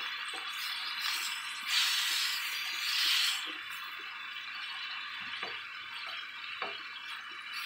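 Vegetables sizzling in a hot wok while a wooden spatula stirs and turns them. The sizzle swells about two and three seconds in as the food is tossed, with a few light taps and scrapes of the spatula.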